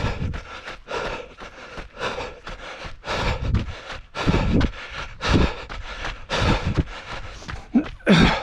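Runner breathing hard while running, a loud breath about once a second.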